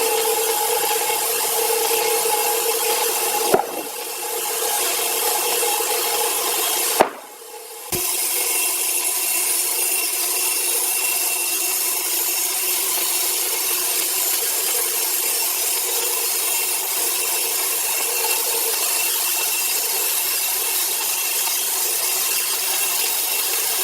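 Power saw cutting through a large log of timber, a steady hissing rasp with a constant hum under it, which breaks off abruptly twice, briefly, a few seconds in.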